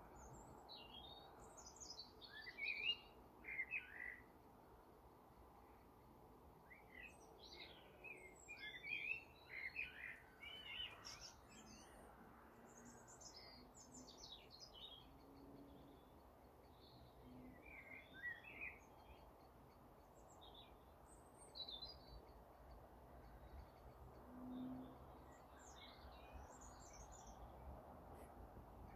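Faint chirps and short twittering phrases from small birds, coming in scattered clusters, over a low steady background hiss.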